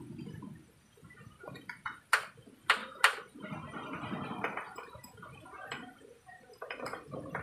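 Tin can being opened with a small hand-held opener: three sharp metal clicks about two to three seconds in, then scraping and smaller clicks as it works around the rim.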